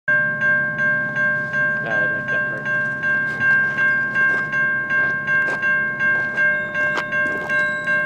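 Railroad crossing bell ringing steadily, about three strikes a second, with the crossing signals activated for an approaching train.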